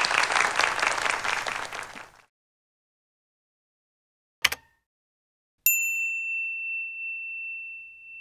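Audience applause that cuts off about two seconds in. After a silence comes a single sharp click, then a bright, bell-like ding that rings on and slowly fades: a subscribe-button click and notification-bell sound effect.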